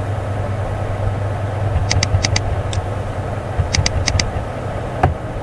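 Computer mouse clicking, two runs of four or five quick clicks about two seconds in and about four seconds in, as a drop-down list is scrolled. A steady low background hum runs under it, and a single soft knock comes near the end.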